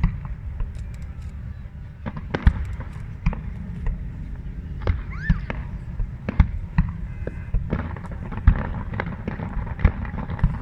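Fireworks display going off: a rapid, irregular run of sharp bangs and crackles over a continuous low rumble, picked up on a mobile phone.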